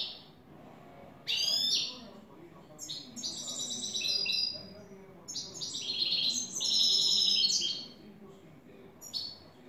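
European goldfinch singing: a short sweeping phrase about a second and a half in, then about five seconds of fast, twittering trills and buzzy notes, and a brief phrase near the end.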